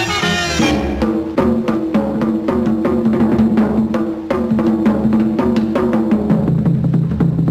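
Swing band music: the horn section stops about a second in, and a drum break takes over, a drummer beating a steady rhythm on a row of tom-toms with sticks over sustained low notes.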